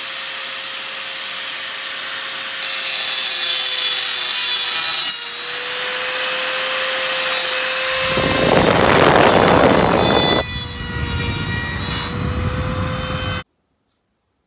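Dremel rotary tool with a grinding stone running at a steady high whine, grinding the edges of a cast metal part in stretches. The grinding is loudest from about eight to ten seconds in. The sound cuts off abruptly near the end.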